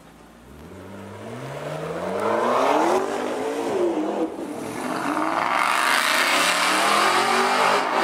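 McLaren MP4-12C twin-turbo V8 accelerating hard. Its pitch climbs to a gear change about three seconds in, climbs again to a second shift, then a long loud stretch of engine noise follows.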